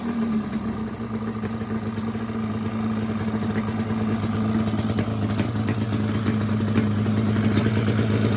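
Yamaha Banshee's twin-cylinder two-stroke engine idling steadily after its revs settle, running good.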